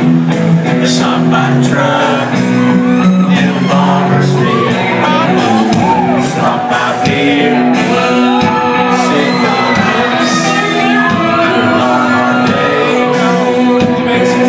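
Live country-rock band playing loudly in a large hall, with electric guitar and drums under a male lead singer, and the crowd shouting and singing along.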